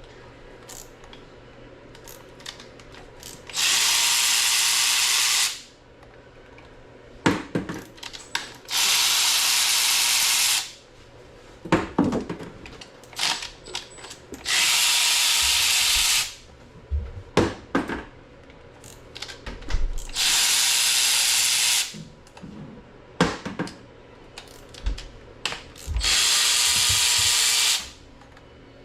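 A power tool running in five steady bursts of about two seconds each, spinning bolts off an LS engine block during teardown, with metal clicks and knocks of parts and sockets between the bursts.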